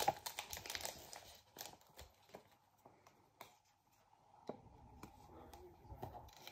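Pokémon trading cards and their plastic and foil packaging being handled by hand: crinkling and light clicks, busiest in the first second, then scattered soft clicks.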